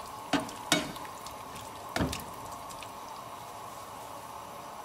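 A thick vegetable curry in coconut cream simmering in a frying pan with a steady hiss, as a spatula is stirred through it and knocks against the pan three times in the first two seconds.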